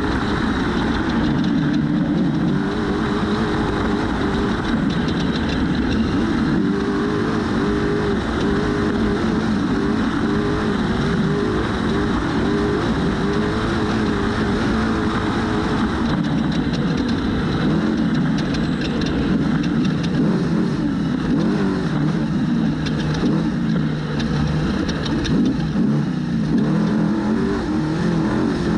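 Trophy truck's V8 engine running hard at race pace, its pitch rising and falling again and again as the throttle is worked, over a constant rushing noise.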